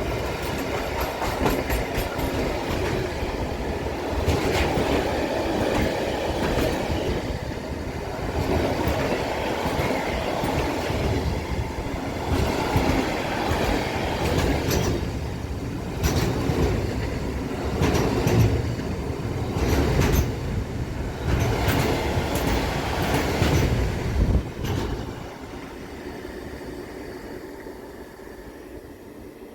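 A train passing close by: a steady rumble of wheels on rails broken by many short, sharp clacks, fading away in the last few seconds.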